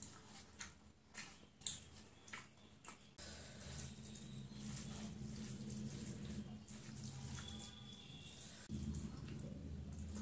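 Sambar poured from a steel bowl onto rice, with a few sharp clinks in the first seconds, then a hand squishing and mixing the wet rice on the plate. A low steady hum runs underneath from about three seconds in.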